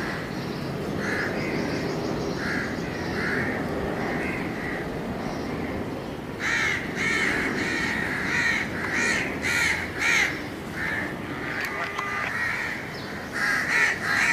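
Crows cawing over and over, soft and scattered at first, then louder and quicker, about two caws a second, from about halfway through. Under them a steady low rumble.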